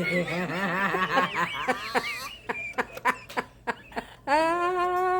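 Giggling and chuckling laughter breaking into short bursts, then a drawn-out high-pitched squeal of delight held for about a second near the end.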